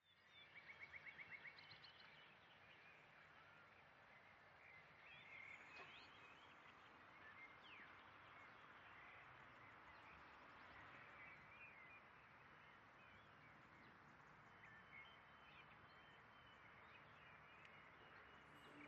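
Faint outdoor ambience: birds chirping over a soft steady hiss, with a quick trill of repeated notes about a second in and scattered short calls after it.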